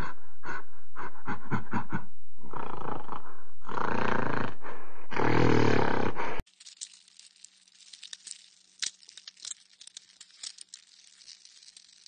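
Silverback gorilla vocalizing in a series of grunts and roars, short and quick at first, then longer, cutting off abruptly a little past halfway. Faint wet clicks and squishing follow.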